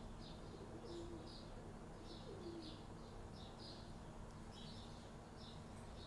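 Faint birdsong: small birds chirping over and over, about two or three short chirps a second, with a few soft low coos from a dove, one of them sliding down in pitch.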